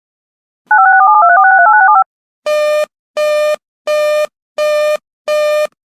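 A rapid string of touch-tone (DTMF) dialing tones from emergency alert relay equipment, then five evenly spaced electronic beeps, the control signals that run between the automated warning bulletins.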